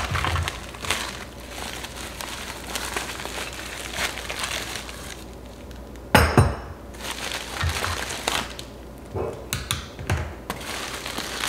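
Paper and plastic packaging rustling and crinkling as parts are unwrapped, with one sharp knock about six seconds in and a few light metallic clinks near the end.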